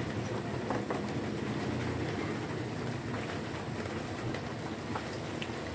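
Steak sizzling on a hot cast-iron ridged grill pan: a steady frying hiss with scattered small pops.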